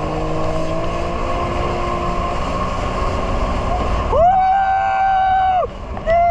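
Jet ski engine running at speed under steady wind and water noise. About four seconds in, a loud high-pitched tone is held steady for about a second and a half, and a second one begins near the end.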